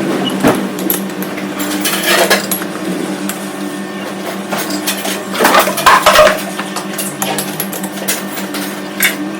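Lathe running with a steady motor hum, with several loud metallic clinks and scrapes around two seconds in, around six seconds in, and near the end.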